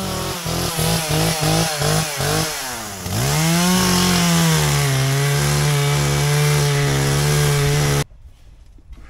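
Two-stroke chainsaw running, first revved in quick pulses about four a second. It then dips in pitch, climbs back and holds a high, steady run, and cuts off abruptly about a second before the end.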